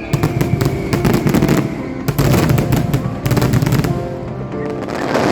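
Fireworks going off in rapid crackling volleys, a dense run of cracks for the first three seconds or so, then thinning out. Music plays underneath.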